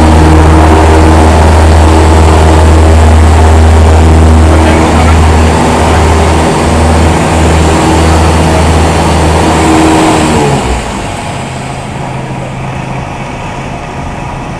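Cessna 172's piston engine and propeller running at high power, heard inside the cockpit as a loud, steady drone. About ten and a half seconds in the power comes off, and the sound falls to a quieter, lower hum.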